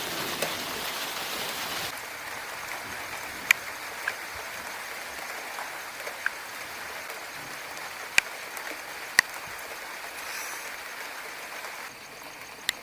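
Steady rain falling during a thunderstorm, with several sharp drips landing close by.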